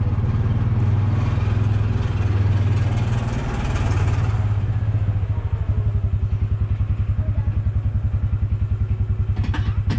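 Engine of a Mule utility vehicle running as it drives slowly, with a strong low hum. About five and a half seconds in, the engine sound turns into an even, rapid throbbing.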